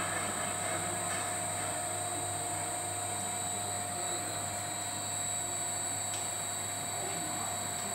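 Heckert 70.30 scissor lift table's electric motor and cardan-shaft drive running steadily as the table lifts, a constant hum with a thin steady whine.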